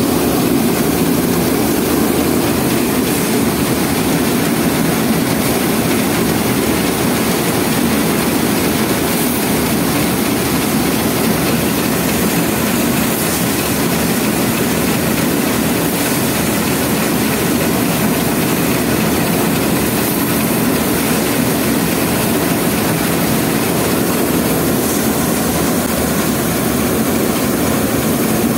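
Tractor-driven threshing machine running steadily under load, its drum beating straw fed in by hand, powered by a Sonalika DI 745 tractor's diesel engine. A loud, even drone with no change.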